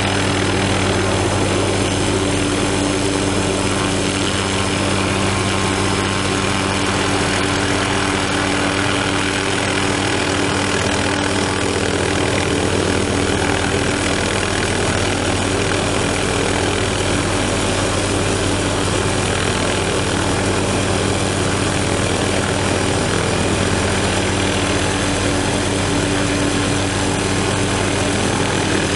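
MD 500-series light helicopter hovering: a steady turbine and rotor noise with a strong low hum.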